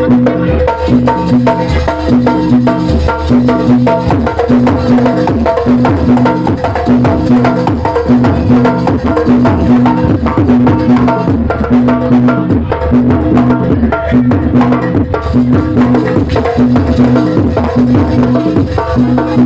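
Jaranan ensemble music: hand drums beating fast under a pitched percussive note that repeats about twice a second, with steadier higher tones above, playing without a break.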